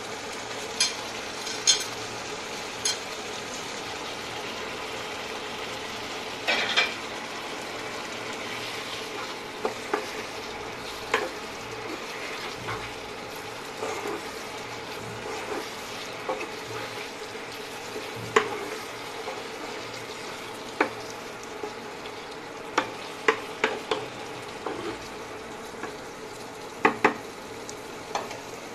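Dried shredded beef frying in oil with onions and tomato in a frying pan, a steady sizzle, stirred with a spatula that knocks and scrapes against the pan at irregular moments.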